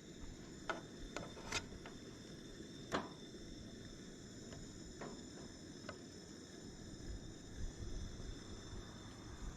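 Steady high trilling of insects, with a few light clicks and scrapes of a spatula against a cooking pan as food is pushed around; the loudest knock comes about three seconds in.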